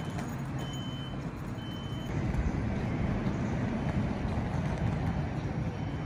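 City-street background: a steady low rumble of distant traffic, louder from about two seconds in. A faint high beep repeats about once a second near the start.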